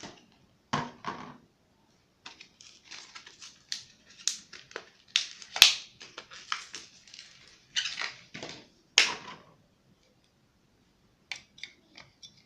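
Packaging being handled: irregular crinkling, rustling and clicks, with a few louder snaps in the middle.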